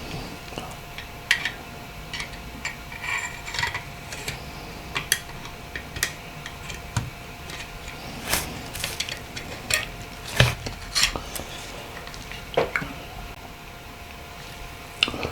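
Small phone parts of a Nokia 8910i being handled and fitted together during reassembly: irregular clicks, taps and short scrapes of hard parts. The loudest knock comes about ten seconds in.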